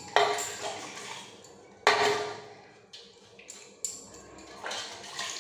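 Clanks and splashes in a large metal basin as a labrador puppy is washed in it, each followed by a short ring from the basin; two louder ones about a second and a half apart, then several lighter ones.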